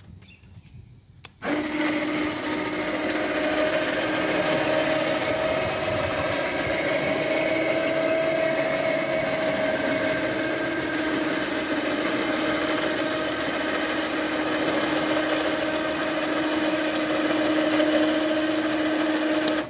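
Cheap electric winch running with a steady whine, lowering a kayak off the motorhome roof along a loader made from garage door tracks. It starts suddenly about a second and a half in.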